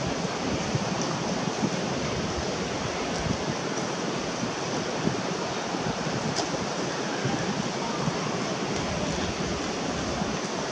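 Wind blowing across the microphone: a steady rushing noise with uneven low rumbling, and a few faint clicks.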